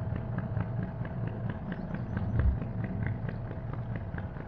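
Narrowboat's diesel engine running at low speed as the boat crawls along, a steady low rumble with a regular ticking beat about four times a second.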